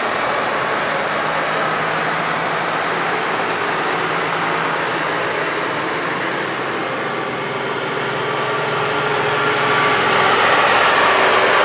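Farm machinery engines running steadily, growing a little louder near the end.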